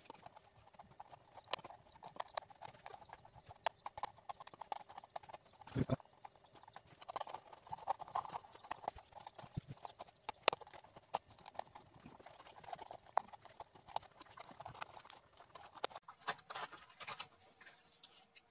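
Irregular small clicks, knocks and scraping of a hand tool working a part loose from a woofer speaker as it is pried off, with a few sharper knocks.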